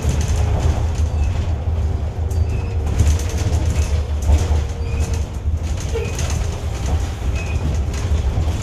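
Cabin noise of a city transit bus under way: a steady low rumble from the engine and drivetrain with a faint steady whine, and light rattles from the bus body.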